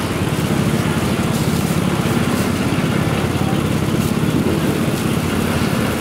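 A small engine running steadily close by, amid street traffic.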